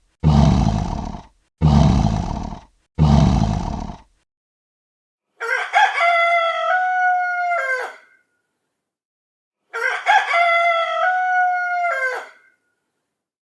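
Three short, deep roars in the first four seconds, then a rooster crowing twice, each crow a long cock-a-doodle-doo of about two and a half seconds.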